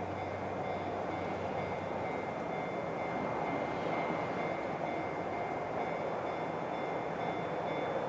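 A train on the JR Tōkaidō Line running past at a level crossing: a steady rumble of wheels on rails that holds an even level throughout, with faint steady high tones above it.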